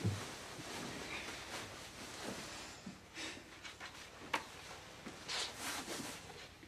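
Soft rustling and handling noises as a notebook is held open on a blanket and its pages turned, with a dull thump at the start and a short sharp click about four seconds in.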